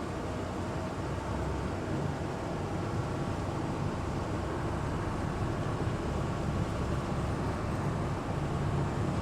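Engine of an amphibious Duck tour boat running steadily as it cruises afloat on the river with its wheels disengaged, heard from on board as a constant low drone over a steady rush of noise.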